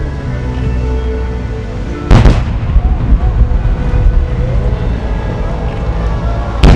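Aerial firework shells bursting, with a loud boom about two seconds in and another near the end, over music playing for the display.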